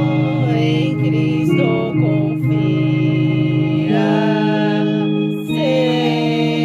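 An organ holds sustained hymn chords that change every second or two, with a voice singing the melody over them.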